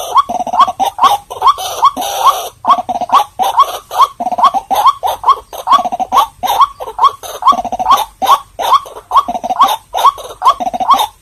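White-breasted waterhen calling: a steady run of short rising notes, about three a second, with a rougher stretch about two seconds in.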